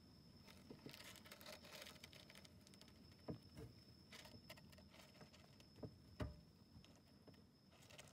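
Faint rustling and small ticks of a yellow Djungarian hamster shifting and grooming on its litter granules, a few sharper clicks scattered through, over a thin steady high whine.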